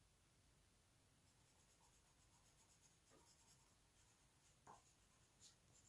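Very faint scratching of a watercolour pencil colouring over cardstock in quick repeated strokes, with a couple of light ticks near the end.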